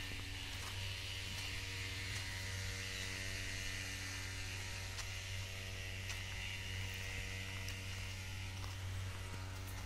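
A steady low hum made of several even tones, with a faint high hiss over it.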